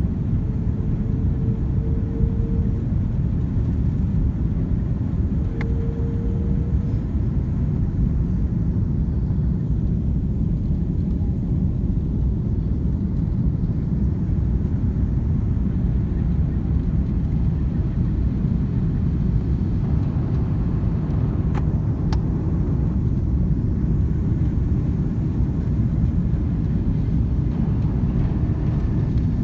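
Cabin noise of an Airbus A330-200 on final approach, heard from a window seat over the wing: a steady low rumble of engines and airflow. Two short steady hums sound in the first seven seconds, and a couple of faint ticks come about twenty-two seconds in.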